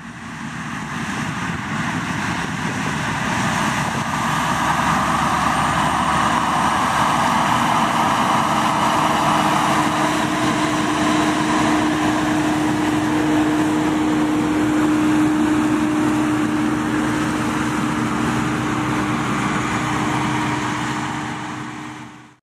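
Self-propelled forage harvester running under load while chopping standing corn, its engine and chopping and blowing gear making a steady mechanical din with a steady hum. The truck being filled runs alongside. The sound fades in at the start and fades out near the end.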